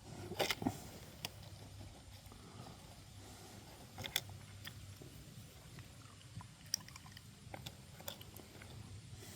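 Scattered light clicks and rattles of handling ammunition and the rifle: a quick cluster about half a second in, then single clicks every second or two. No shot is fired.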